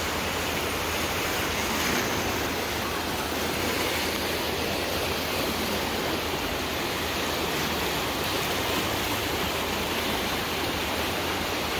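Swollen, fast-flowing brown river rushing steadily beneath a bridge, its churning water making an even, unbroken rush.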